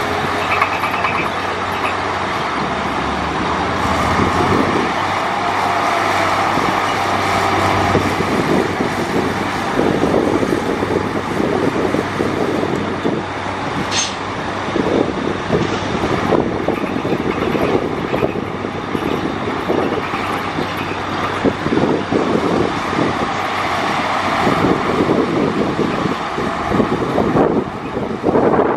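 Heavy diesel earthmoving machines, a bulldozer and dump trucks, running steadily with dense clanking and rattling. A brief high-pitched squeal comes about halfway through.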